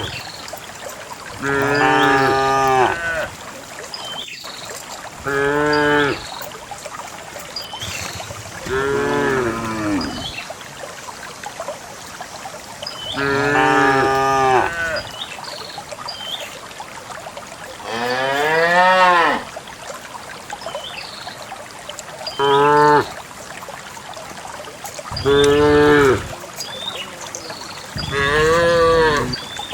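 Cows mooing again and again: about eight long calls a few seconds apart, some bending up and then down in pitch.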